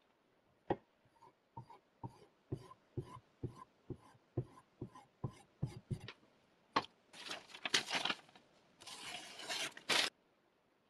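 Handling noises at a guided knife sharpener: a run of light clicks and taps about twice a second, then two short bursts of scraping that stop suddenly.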